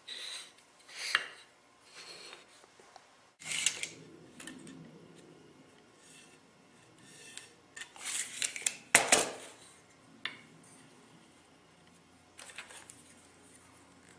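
Woodworking hand tools being handled on a workbench: a series of short scrapes and metallic clinks with pauses between them.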